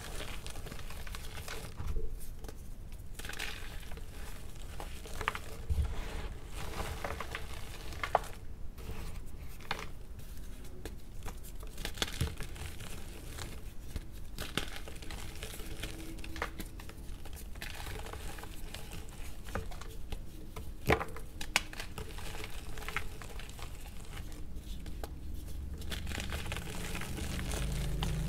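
Blocks of gym chalk crushed and crumbled between bare hands over loose chalk powder: a dry, continuous crunching and crumbling, with a sharp snap now and then as a piece breaks, and a fuller rustle of powder near the end.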